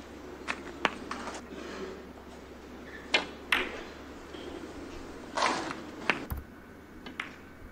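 Snooker balls clicking: the cue tip striking the cue ball and the cue ball striking an object ball, heard as sharp clicks now and then over a quiet arena hush, as a red is potted.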